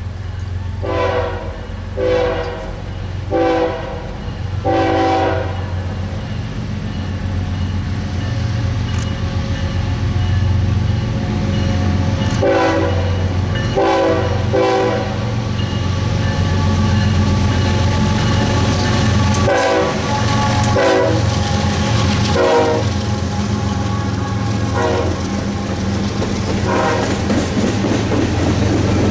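Multi-chime air horn of GE ES44AC locomotive NS 8103 sounding about a dozen short blasts, the first four in quick succession and the rest in spaced groups, a playful horn show. Under the horn runs the steady low rumble of the locomotive and freight train passing.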